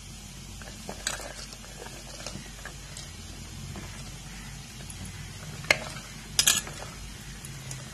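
Chopped vegetables tipped from a metal bowl into a pressure cooker: scattered clinks of the bowl against the cooker rim and the pieces dropping in, with the loudest clink and a short clatter about three-quarters of the way through, over a low steady hum.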